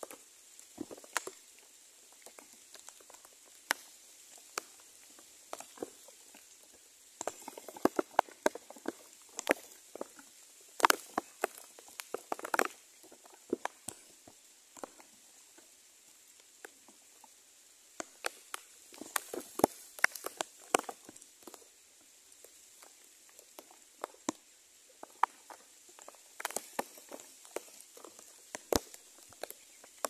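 Irregular rustling and sharp crackling clicks in bursts, as of leaves and twigs in a bird's nest being disturbed, heaviest in a few clusters with quieter stretches between.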